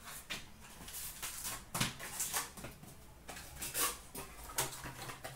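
Handling of a cardboard card box and foil card packs on a glass counter: scattered rustles and light taps at irregular intervals.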